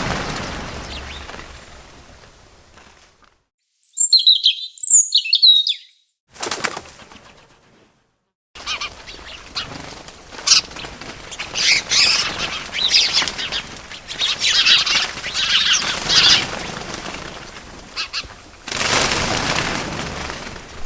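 Bird sounds: a few short, high chirps about four seconds in, then a longer run of chirping mixed with the rustle of wings flapping, with swells of flapping-wing noise at the start and near the end.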